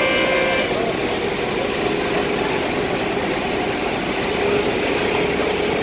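Steady engine drone under a rushing hiss: a fire engine's pump running while water jets from a fire hose.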